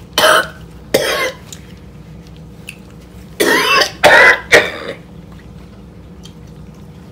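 A woman coughing and clearing her throat into a napkin while eating ghost pepper beef jerky. Two short coughs come in the first second or so, then two louder, longer coughs about three and a half seconds in.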